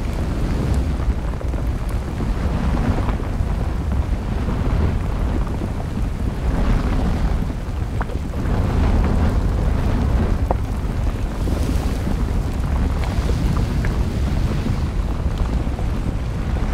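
Deep, continuous rumble of a volcanic eruption, swelling and easing every few seconds, with a few sharp cracks.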